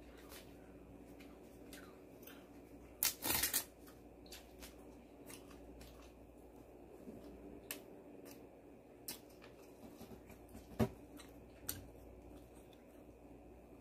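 Crunching bites and chewing of a crisp, flat piece of fried food. The loudest crunches come about three seconds in, followed by scattered single crunch clicks as the chewing goes on.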